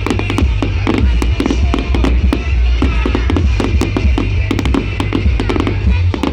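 A fireworks display, with rapid crackling and bangs going off throughout, over loud music with heavy bass. The bass cuts out near the end.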